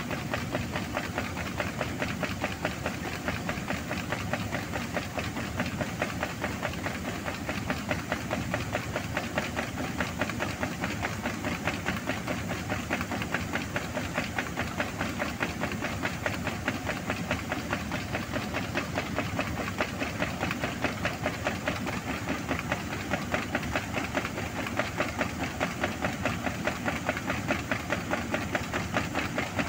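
Combine harvester running while its unloading auger pours barley grain into a trailer: a steady engine and machinery noise with a fast, even pulse, mixed with the sound of grain pouring.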